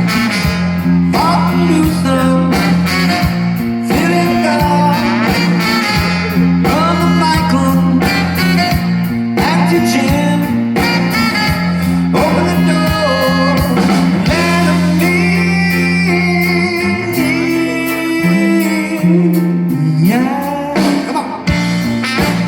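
Live rock band playing, with a lead singer over electric guitar, bass and drums.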